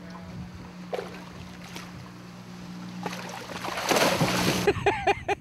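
A boat motor idles with a steady low hum. About four seconds in, a hooked king salmon thrashes at the surface beside the boat and throws up a loud splash, followed by a few short excited shouts.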